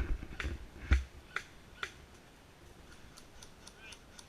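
Airsoft gunfire: a series of sharp snaps about two a second, the first the loudest, then fainter, quicker ticks near the end.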